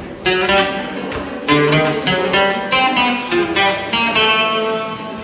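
Acoustic guitar playing live, a steady run of plucked notes and chords.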